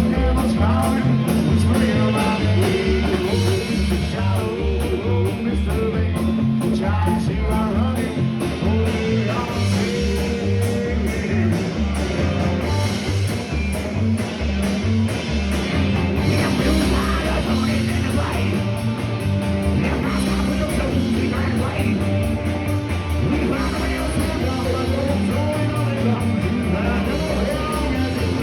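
Loud rock music with singing, electric guitar, bass and drums.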